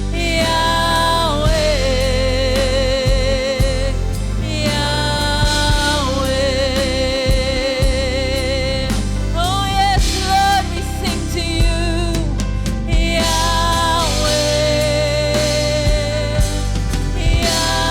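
Gospel worship song: a voice sings long held notes with vibrato, sliding between pitches, over a steady band accompaniment.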